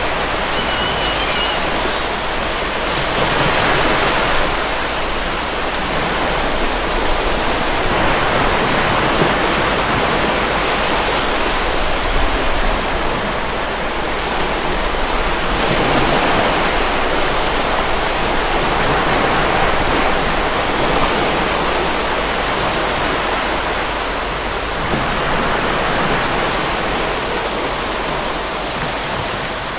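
Stormy ocean waves breaking as continuous heavy surf. The wash swells and eases every few seconds as successive waves come in.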